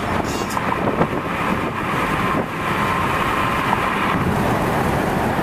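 Steady rushing noise of a moving vehicle, with wind on the microphone.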